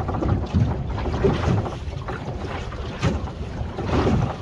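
Wind buffeting the microphone over water washing against the hull of a small boat at sea, rising in a few louder gusts.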